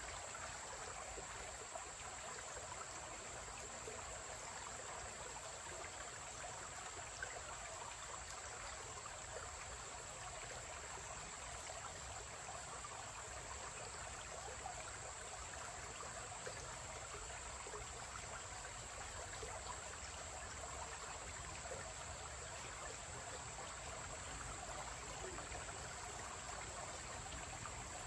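Shallow creek water trickling and babbling steadily over rocks and stones, with a steady high-pitched drone underneath.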